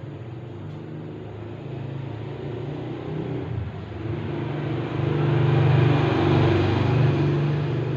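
Cat purring close to the microphone while kittens nurse: a continuous low, pulsing rumble that grows louder about five seconds in.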